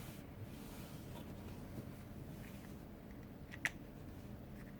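Faint handling of small craft parts, with one short sharp click a little over three and a half seconds in.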